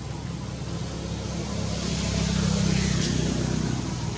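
A motor vehicle's engine running as it passes, a low hum that grows louder to a peak about two to three seconds in, then eases off.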